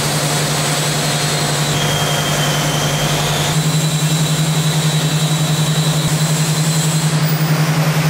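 Steady low mechanical hum of running workshop machinery, with a faint high whine over it; about halfway through it shifts slightly and takes on a fast, even pulsing.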